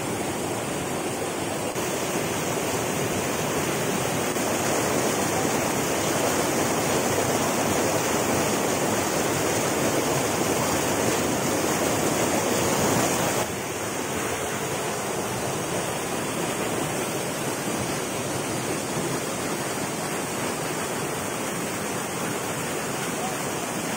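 River water rushing steadily over rock cascades and a small waterfall into a pool, as a continuous sound of white water close to the microphone. It drops slightly in level a little past halfway.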